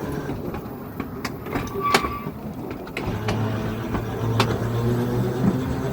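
Electric tram running on rails, its wheels clicking sharply several times. About three seconds in, a motor whine starts and rises steadily in pitch.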